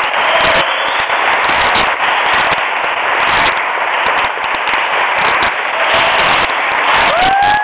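Dense applause from a group clapping hands. Near the end a single rising cheer, a 'woo', holds briefly and drops away.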